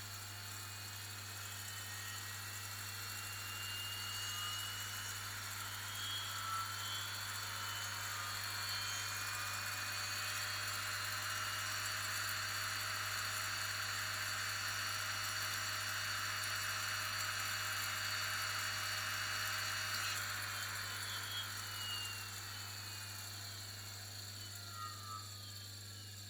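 BMW X5 E70 electric fan motor on a test run after repair. It whirs up to speed with a rising whine over the first several seconds, runs steadily, then winds down with a falling whine from about two-thirds of the way in.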